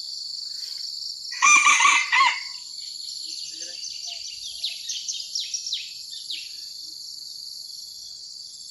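A cockerel crowing once, about a second and a half in, over a steady high-pitched insect drone. A run of short, falling bird chirps follows around the middle.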